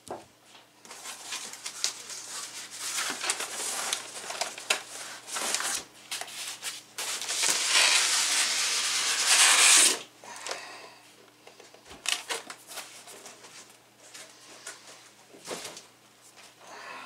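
Cardboard rubbing and scraping as a boxed scan tool is slid up out of a tight cardboard shipping carton, with a long loud scrape about two-thirds of the way through the pull. Then scattered light knocks and handling of the box.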